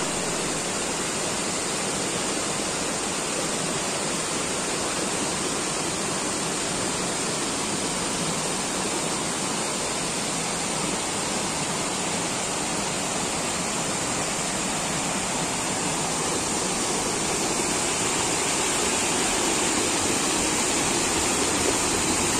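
Rushing water of a tiered hillside waterfall and the rocky stream cascading below it: a steady, unbroken rush of falling water that grows a little louder near the end.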